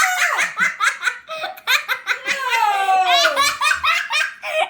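High-pitched laughing in quick repeated bursts, with one long falling note about two and a half seconds in.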